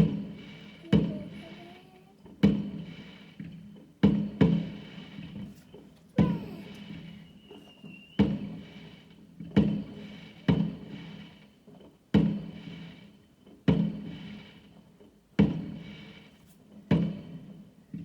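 A steady series of heavy booms, about one every second and a half, each dying away over roughly a second.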